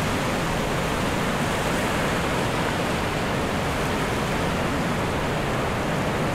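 Surf washing up a sandy beach, small waves breaking and foam spreading over the sand: a steady, even rush of noise.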